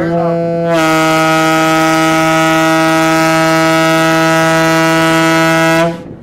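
A ferry's horn sounding one long, loud, steady blast of about six seconds. It grows fuller under a second in and cuts off sharply near the end.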